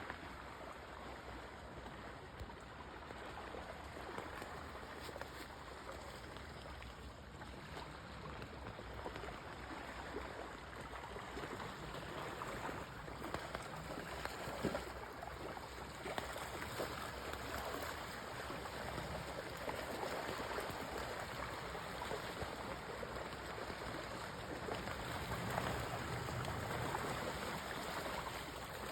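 River water running over rocks: a steady rushing stream sound.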